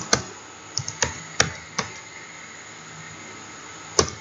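Computer keyboard being typed on slowly, key by key: about six sharp clicks in the first two seconds, a pause, then one more near the end.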